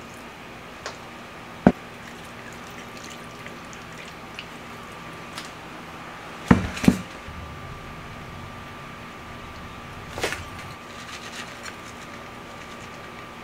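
Handling sounds as sauce is poured over pork belly and eggplant in a bowl and toppings are added: a sharp click, two loud sharp knocks midway, a clatter, then a few light ticks as toppings are sprinkled on. A steady electrical hum runs underneath.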